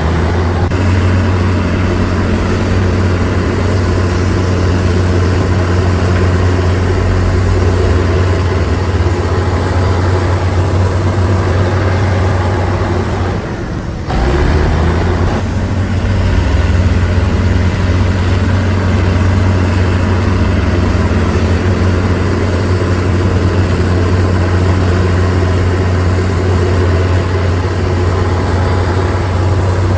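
Heavy construction machine's engine running steadily with a deep, constant hum; the sound dips briefly about fourteen seconds in, then carries on as before.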